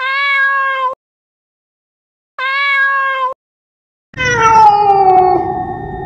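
Cat meowing: two identical short meows of about a second each, then, about four seconds in, a longer, louder meow that slides down in pitch.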